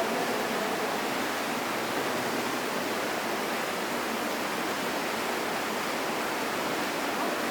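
Steady, even rush of flowing or falling water.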